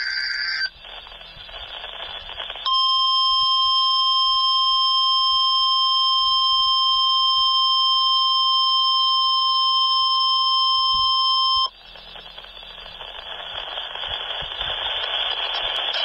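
A NOAA weather radio's speaker plays the end of a warbling digital data burst from the Emergency Alert System header. After a couple of seconds of hiss, the NOAA warning alarm tone sounds: one steady, loud, piercing tone held for about nine seconds. It cuts off abruptly into radio static.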